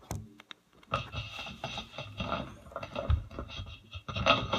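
Scratching and rubbing handling noise: a few clicks, then continuous scraping from about a second in that grows louder near the end.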